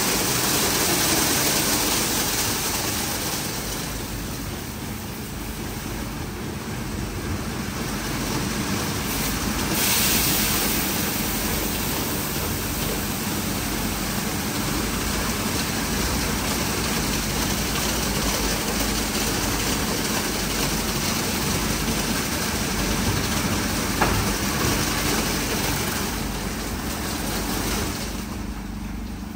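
WashTec SoftCare2Pro rollover car wash running: a dense rush of water and washing noise over the steady hum of the machine's motors. The rush swells briefly near the start and again about ten seconds in, and there is one short click about three-quarters of the way through.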